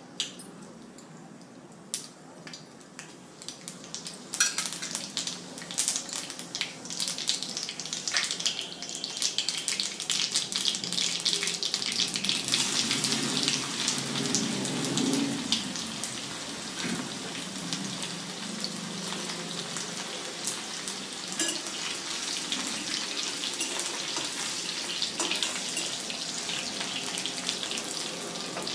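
Food sizzling and crackling in hot oil in a cooking pan. The sound starts about four seconds in, grows louder, then settles into a steady sizzle.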